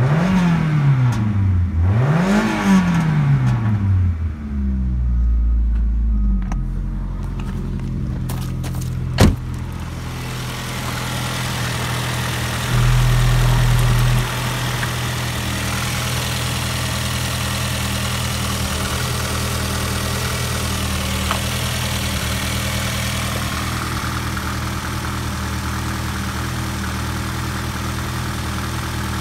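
Ford Focus 1.8 Zetec (EYD) four-cylinder petrol engine revved twice, its pitch rising and falling, then settling to a steady idle. A single sharp knock comes about nine seconds in, after which the engine idles on steadily, with more hiss in the sound.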